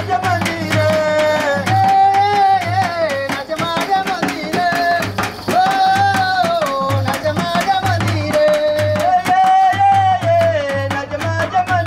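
Folk dance music: a hand drum keeps a fast, steady beat under a high melody line of held and sliding notes.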